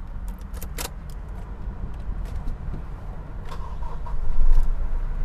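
Clicks of the key in the ignition of a Toyota Hilux Revo, a short chime, then its 2.4-litre four-cylinder turbodiesel starting about four seconds in and running.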